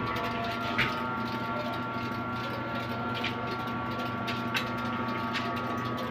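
A small motor running with a steady, even hum, with a few faint clicks over it.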